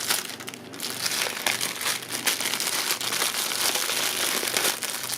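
Plastic packaging crinkling and crackling steadily as it is handled and opened to get a USB cable out.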